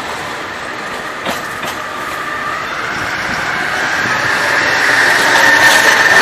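Narrow-gauge train running on the rails, growing steadily louder, with a click a little over a second in. A high wheel squeal builds in the second half.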